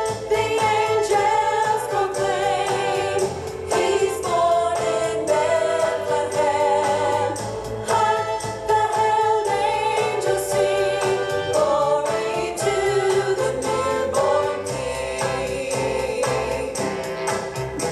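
Choir singing a Christmas song about angels, a 1960s recording with instrumental backing, voices held on long notes with vibrato.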